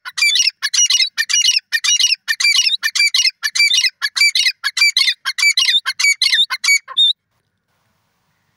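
Grey francolin calling: a loud run of harsh, rapidly repeated notes, about two a second, that stops abruptly about seven seconds in.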